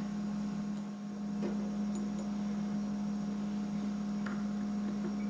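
A steady low hum, with a few faint light clicks as a bearing is fitted by hand into an aluminum fidget spinner.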